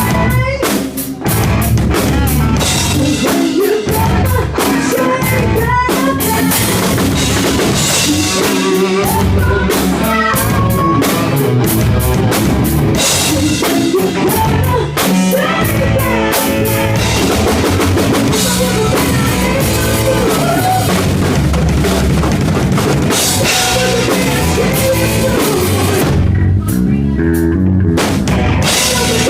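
Rock band playing live at a sound check, with the drum kit to the fore: bass drum and snare keep a steady beat under guitar. The cymbals drop out briefly near the end.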